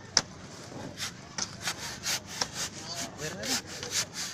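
A sharp click just after the start, then rapid rhythmic scraping strokes, about four a second, like a hand saw or a stiff scrubbing stroke.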